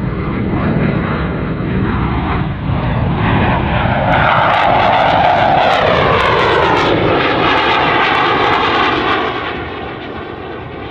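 CF-18 Hornet's twin General Electric F404 turbofan engines on a flyby: a jet roar that swells about four seconds in, crackling, with a whine that falls in pitch as the jet passes, then dies down near the end.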